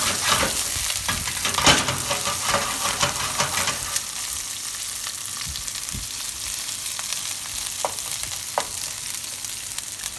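Garlic, onion, herbs and Scotch bonnet pepper sizzling in a hot pot while being stir-fried, with a spoon scraping and clattering against the pot. The stirring clatter is busiest in the first few seconds, then the sizzle carries on steadily with only an occasional click.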